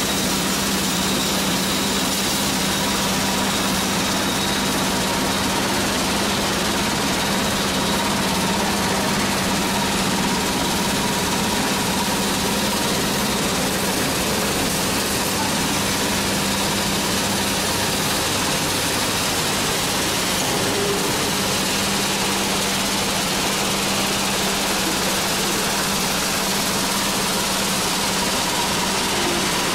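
Nut chopping machine and its vibrating grading screens running steadily: an unchanging motor hum under a broad hiss and rattle of chopped nut pieces shaking across the screens.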